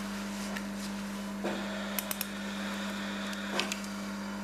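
Operating-room ambience: a steady low hum, with a couple of faint clicks of surgical instruments about two seconds in.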